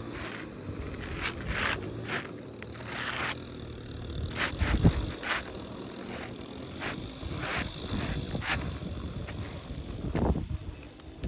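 Asphalt roof shingles scraping and rustling as they are lifted and worked by hand, with one heavy thump about five seconds in.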